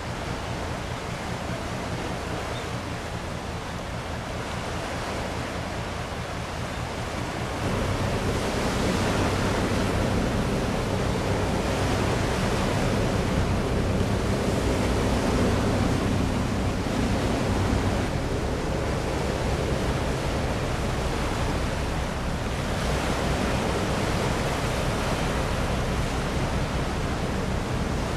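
Steady sea and wind noise, a wash of waves with wind on the microphone, over a low steady hum. It gets louder about eight seconds in.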